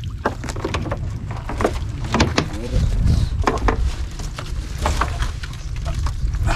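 Irregular knocks and clatters of crab traps and crabs being handled on a small boat, over a steady deep rumble.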